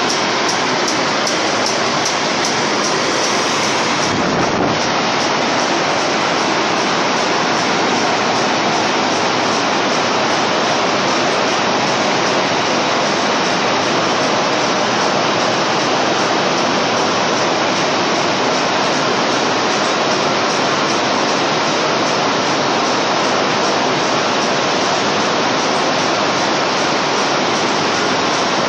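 Rows of cotton carding machines running together in a mill carding room: a loud, steady machine roar.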